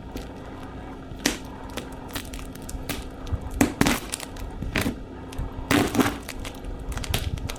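Cardboard computer box being handled and picked at to get its taped flaps open: a scattered series of knocks, scrapes and crackles on the cardboard and packing tape.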